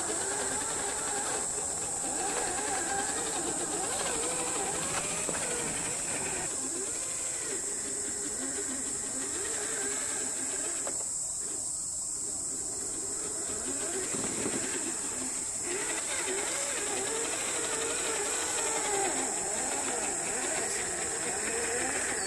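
Electric motor and gearbox of an Axial SCX10 III 1/10-scale RC crawler whining, the pitch rising and falling as the throttle changes while it crawls over rocks. A steady high-pitched hiss runs underneath.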